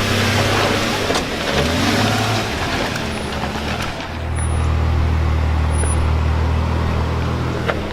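A vehicle engine running at a steady low hum. Over the first four seconds a rushing noise rides on top of it, then the engine hum is left on its own and runs on steadily.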